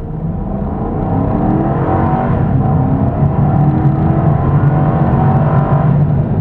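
A car engine accelerating hard, its pitch climbing as it revs up, then running on at high revs.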